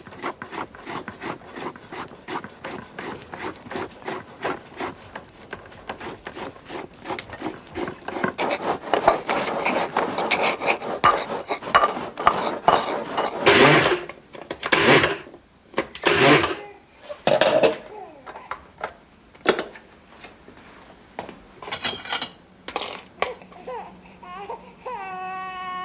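Shallots being ground and rubbed by hand in a bowl: even scraping strokes at about three a second, getting louder about halfway through. Near the end a baby starts crying.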